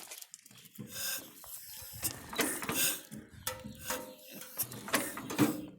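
A 1950s-era small gas engine on a hay press being turned over by hand without firing, with uneven mechanical clicking and ratcheting as it is pulled through against its compression. It will not start because of a faulty carburetor and magneto.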